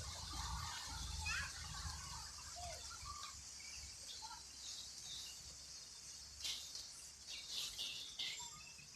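Small birds chirping outdoors: short, high chirps, most of them bunched in the second half, over a steady low rumble of background noise.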